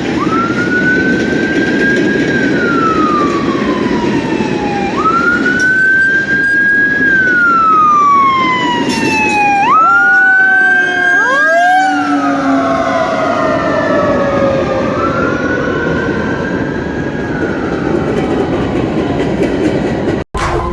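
Fire truck siren wailing in long cycles: each climbs quickly, holds high, then falls slowly, about every five seconds. About halfway through, a second siren overlaps with faster sweeps, over a steady low rumble.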